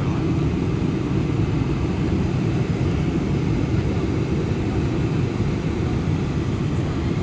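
Steady cabin noise of a Boeing 747-400 on final approach, engines and rushing air heard through the fuselage as a low, even rumble.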